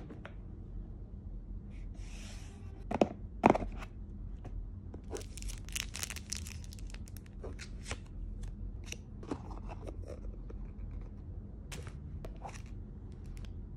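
Sunglasses packaging being handled and unwrapped: a rigid box opened with two sharp knocks about three seconds in, then a thin clear plastic sleeve crinkling and crackling as it is pulled off the glasses case, with scattered taps and rustles after.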